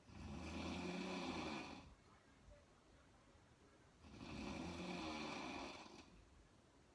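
A woman snoring: two snores, each about two seconds long, about four seconds apart.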